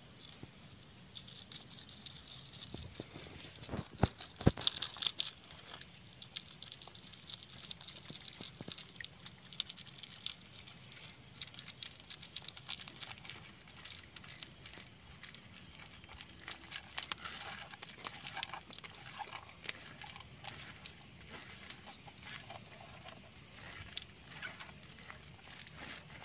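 Close-up crackling and scratching of fingers picking at a rough, bumpy surface: many small irregular clicks, with a few louder knocks about four seconds in.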